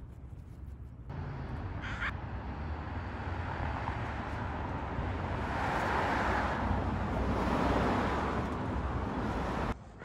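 A passing vehicle's noise swells over several seconds, loudest past the middle, then cuts off suddenly near the end.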